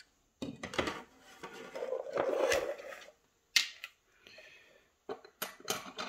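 Small metal lock parts and a plastic parts tray being handled and set down on a wooden desk: a run of light clicks and knocks, with a short scraping, rustling stretch in the middle.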